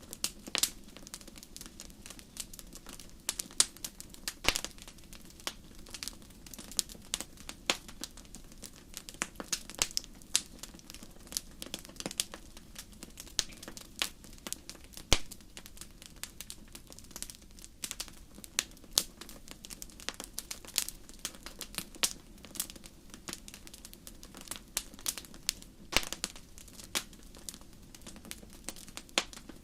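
Wood fire burning in a fireplace, crackling with sharp, irregular pops several times a second over a faint, steady low background.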